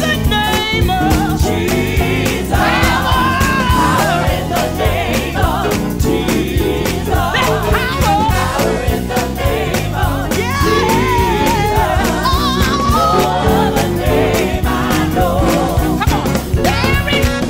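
Live gospel band playing an upbeat groove on Hammond organ, keyboard, saxophones, trumpet and bass guitar, with a steady beat.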